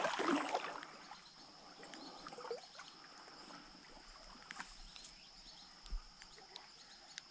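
Faint summer creek-side ambience: a steady high drone of insects, with a short noisy rustle at the very start and a few faint clicks.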